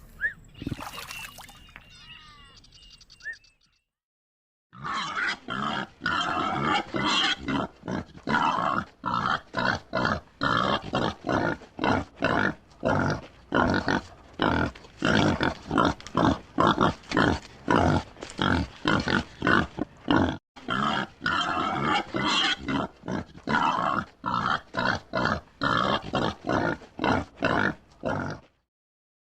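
An animal calling in a long run of short, rapid pulses, about two to three a second, with one brief break about two-thirds of the way through.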